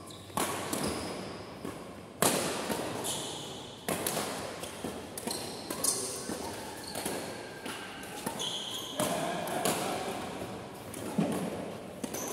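Badminton rackets striking the shuttlecock in a doubles rally, a string of sharp hits every second or two, each echoing through the hall.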